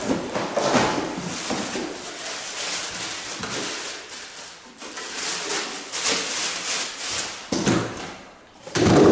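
Handling noise: rubbing, scraping and a few knocks as the CO2 jet machine and its accessories are moved about and set down, with one louder knock near the end.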